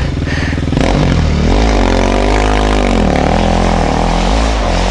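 Enduro motorcycle engine running close by, settled low at first, then revved up about a second and a half in and held high. It eases off, then blips up once more near the end.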